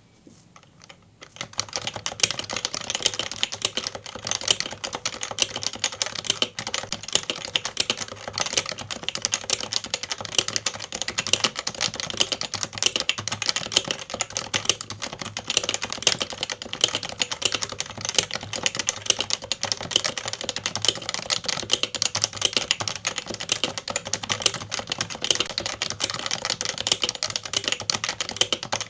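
Unlubed HHKB Professional 2 Topre keyboard, fitted with Realforce variable-weight domes and Topre/Realforce keycaps, being typed on quickly and continuously. The stream of keystrokes starts about a second in.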